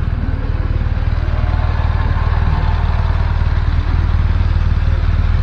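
BMW police motorcycle engines idling close by, a steady low rumble.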